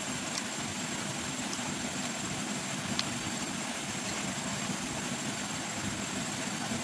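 Steady low mechanical drone under an even hiss, with a couple of faint clicks.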